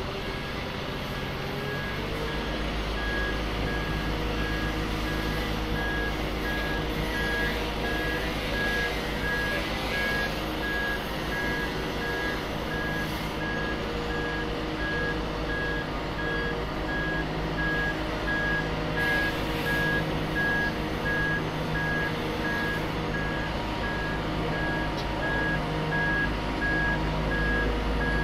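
Boat travel lift driving with a boat in its slings. Its engine runs with a steady low hum while its motion alarm beeps over and over at an even pace, both growing slightly louder as the lift approaches.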